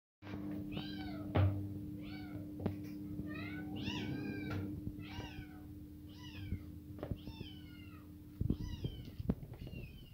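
A domestic cat meowing over and over: many short meows, each falling in pitch, as food is dished out. A few sharp knocks from food being spooned into stainless steel bowls are mixed in.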